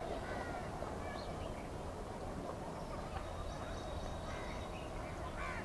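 House crows calling: short scattered caws from several birds, the loudest one falling in pitch near the end, over a steady background noise.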